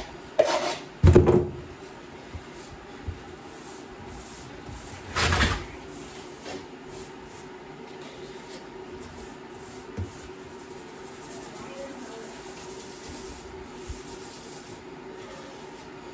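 Grouting work on tile: a few loud scrapes and knocks around one second in and again about five seconds in, then quieter rubbing over a steady hum.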